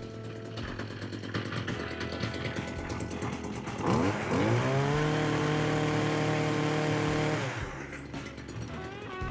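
Stihl HT56 pole saw's small two-stroke engine idling, then revved to full throttle about four seconds in, held high for about three seconds, and let back down to idle: the saw now starts and runs after repair.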